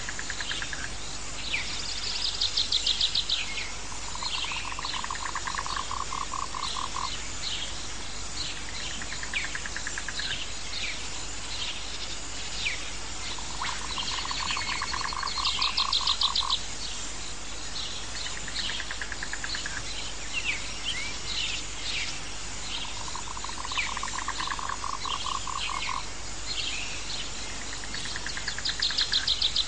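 Nature ambience of frogs calling. A low pulsed trill about three seconds long comes three times, over steady high hiss and frequent short chirps, with higher pulsed trills recurring among them.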